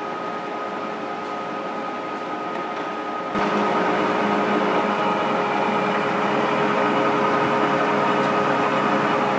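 American Pacemaker engine lathe running, its geared headstock turning the spindle and four-jaw chuck with a steady whine of several tones over a hum. About three seconds in it gets suddenly louder and stays so.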